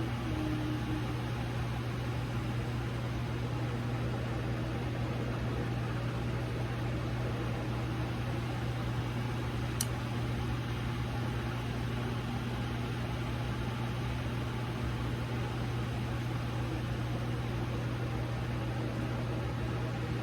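Hair dryer running steadily, a continuous whir and rush of air over a low hum, as is typical for drying quick-weave bonding glue. A single sharp click about ten seconds in.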